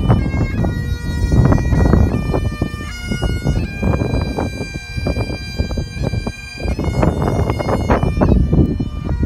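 Bagpipes playing a melody of held notes over a steady drone, with wind buffeting the microphone.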